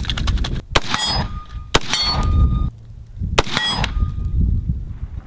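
Faxon ARAK-21 rifle firing .300 Blackout with dirt packed into its action, a few single shots about a second or more apart, each followed by the ringing clang of a steel target being hit.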